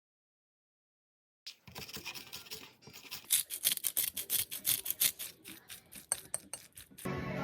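Rapid, scratchy rubbing strokes, about five a second, starting after a second and a half of silence; music comes in near the end.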